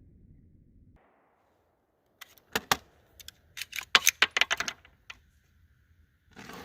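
A quick run of sharp, irregular clicks and clacks lasting about three seconds, starting after a brief near-silent gap.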